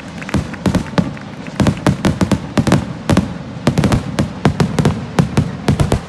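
Fireworks going off in a rapid, irregular string of sharp bangs and booms, several a second.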